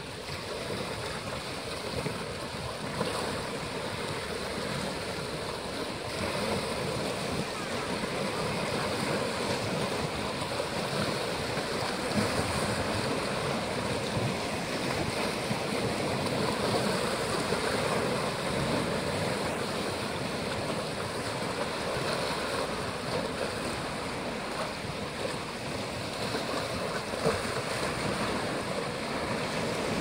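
Small sea waves washing and splashing against a rocky shore in a steady wash of surf, with an occasional louder splash.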